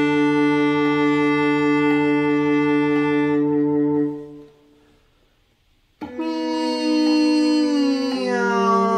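Viola bowing one long held note, an octave above the cello part, that stops about four seconds in. After a short silence, a new bowed note starts and slides down in pitch, a glissando imitating a cat's "me-ow".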